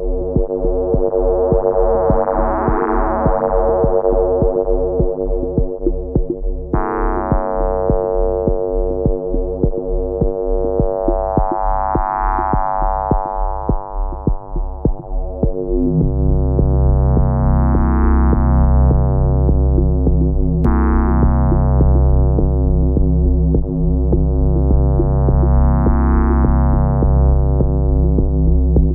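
Elektron Digitone FM synthesizer playing a sustained drone chord that slowly brightens and darkens in repeated filter swells, over a fast low pulse. About halfway through, a heavy sustained bass drone comes in underneath.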